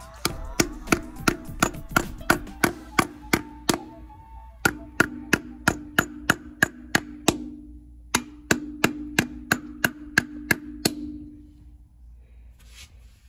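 Soft-faced mallet tapping direct-injection block-off plugs home into their bores on a Lamborghini 5.2 V10, about three strikes a second in three runs with two short pauses, stopping about 11 seconds in.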